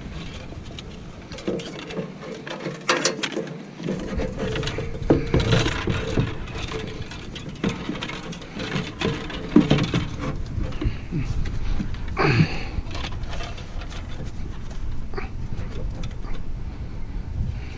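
Black plastic intake tube and rubber coupler being worked into a plastic air box: irregular rubbing, scraping and knocks of plastic and rubber parts. A low rumble sets in about four seconds in.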